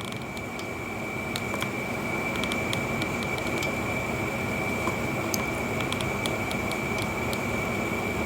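A small electric motor runs steadily with air noise and a constant high whine, with scattered light ticks over it.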